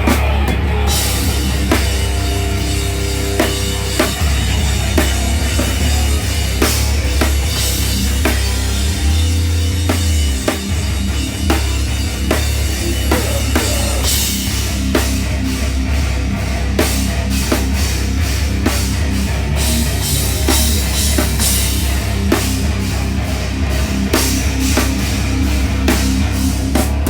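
Live heavy metal band playing: loud distorted guitars and bass with pounding drums and crashing cymbals, heard through a crowd recording.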